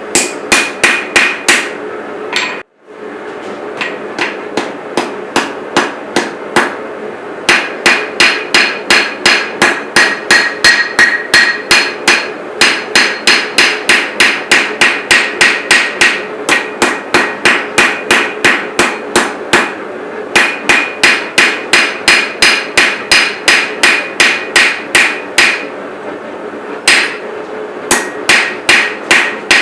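Hand hammer striking steel on an anvil while forging a chef's knife blade: steady rhythmic blows about three a second, each with a metallic ring, in runs broken by short pauses, over a steady low hum.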